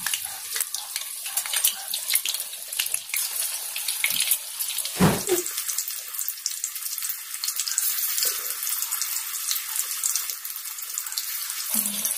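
Gram-flour batter fritters deep-frying in hot oil in a steel kadai: a steady, crackling sizzle full of fine pops as fresh batter goes into the oil. A brief low knock sounds about five seconds in.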